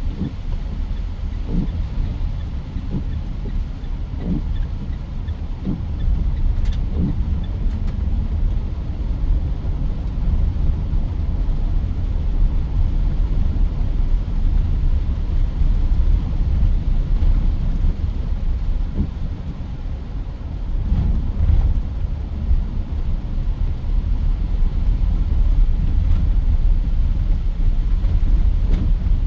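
Mitsubishi Pajero Sport SUV on the move: a steady low rumble of engine and road noise, with a few soft knocks in the first several seconds.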